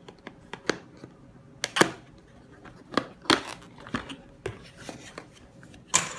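Cardboard packaging being handled: a box slid out of its sleeve and its lid flipped open, giving scattered scrapes, taps and knocks, loudest just under two seconds in and again near the end.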